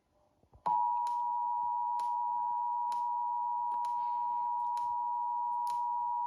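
Emergency Alert System attention signal: the steady two-tone alert (853 and 960 Hz together) sounds about two-thirds of a second in and holds without a break. Faint clicks come through roughly once a second.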